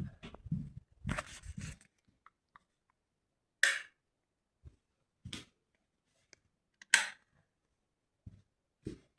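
Sharp knocks in a quiet room: three clear ones about a second and a half apart, after some low thudding and rustling at the start, with a few duller thumps near the end.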